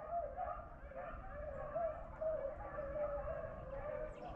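A pack of beagles baying together in a steady chorus of overlapping howling calls. The hounds are in full cry, running a rabbit's scent trail.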